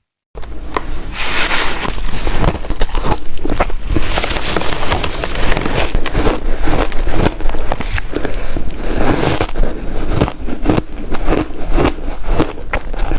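Close-miked biting and chewing of crunchy shaved ice: dense crackling crunches and sharp clicks, with no pause.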